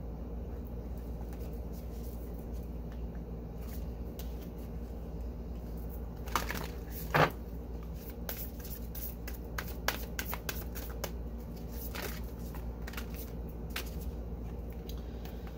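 Tarot cards being handled and shuffled by hand: a run of short clicks and papery rustles from about six seconds in, loudest about a second later, fading out near the end, over a steady low hum.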